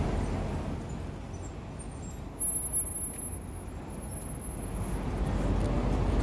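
City street traffic: a steady low rumble of passing cars, with two brief sharp knocks a little over a second in and a faint high whine in the middle.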